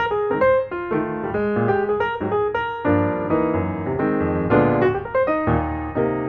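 Piano music: a quick run of single notes over changing chords.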